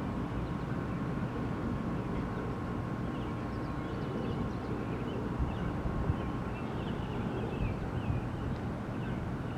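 Outdoor background noise: a steady low rumble, like distant traffic, with faint short high chirps scattered through it.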